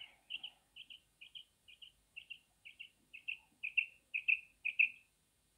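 Female common quail calling: a run of about eleven short, high double notes, about two a second, growing louder toward the end before stopping.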